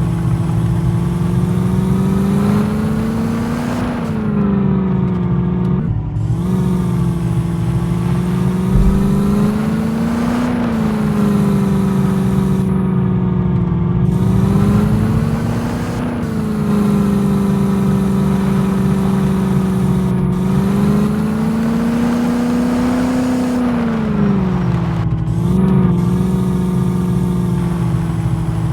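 Jeep engine running under load, its pitch rising and falling every few seconds as the throttle is opened and eased, with brief drops in between.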